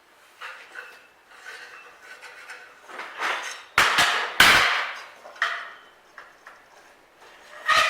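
Steel bar stock clanking and scraping against a homemade metal bender as a bend is put in a gate-latch bar, with three sharp, loud metal strikes close together about four seconds in and another near the end.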